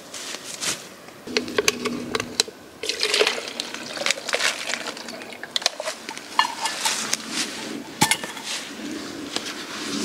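A water-filled plastic bottle being handled and hung upside down on a tree branch: many irregular sharp crinkles and clicks of the plastic, with a little sloshing of water.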